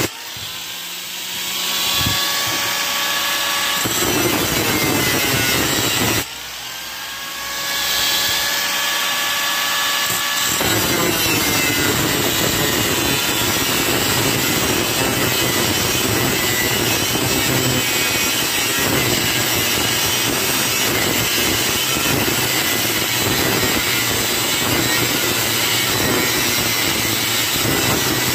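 Angle grinder with a cutting disc grinding a shallow groove into the steel shell of a refrigerator's hermetic compressor, a steady, loud grinding. At the start and again about six seconds in, the disc eases off the metal and the motor's whine is heard on its own for a moment before the cut picks up again.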